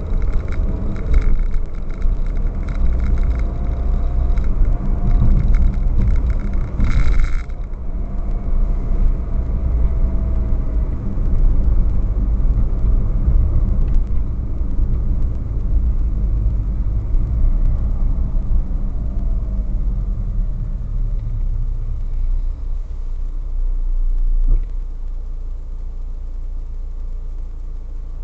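Low road and engine rumble of a car driving in traffic, picked up inside the cabin by a windshield-mounted dash camera's microphone. A short burst of hiss comes about seven seconds in. Near the end the rumble drops as the car comes to a stop in traffic, leaving the engine idling.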